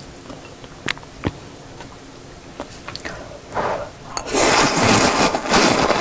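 A person slurping a mouthful of jjamppong noodles in spicy broth, loud and lasting about two seconds in the second half, after a couple of light clicks about a second in.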